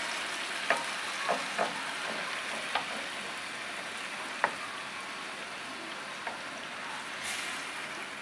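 Chicken pieces in tomato broth sizzling steadily in a double-sided frying pan, stirred with a wooden spoon that knocks lightly against the pan a few times.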